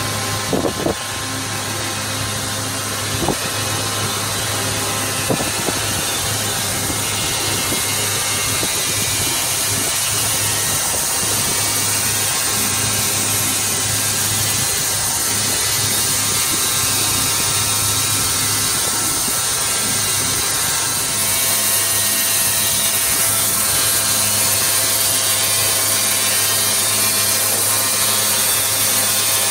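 Crankshaft grinding machine running steadily, a constant mechanical hum and hiss. A few sharp clicks come in the first six seconds. About two-thirds of the way in, the noise gets a little louder and a steady tone joins it.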